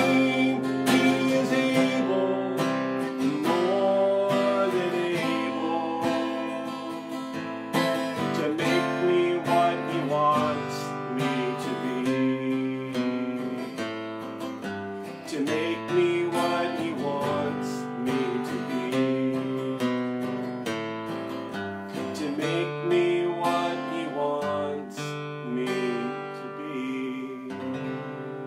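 A man singing a praise song while strumming a steel-string acoustic guitar, the playing growing quieter toward the end.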